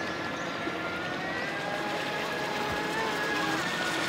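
Radio-controlled scale model boat running at speed: a steady high motor whine over a hiss, its pitch wavering slightly, with a lower tone joining about two seconds in.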